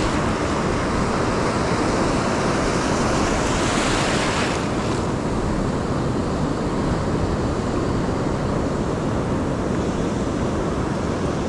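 Pacific surf washing onto the beach, a steady rush with one wave surging brighter about four seconds in, with wind buffeting the microphone.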